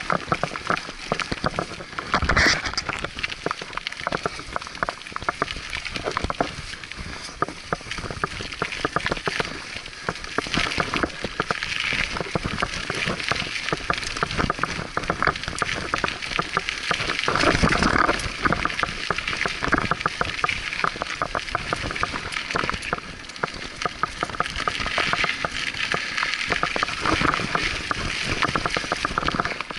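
Scott Aspect 35 mountain bike riding fast down a dirt singletrack: a dense crackle of the tyres over loose dirt and stones, with the bike rattling. There are heavier jolts a couple of seconds in and again about halfway through.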